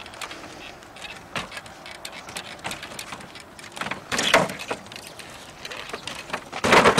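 Unicycle hopping on wooden pallets: scattered knocks and creaks of the tyre and wood, a louder thud about four seconds in, and a loud crunching landing on the pallets near the end.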